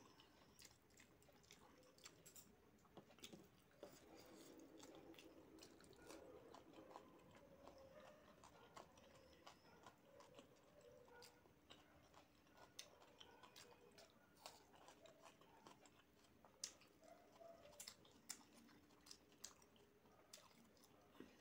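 Faint chewing of rice and curry, with scattered small clicks and mouth sounds.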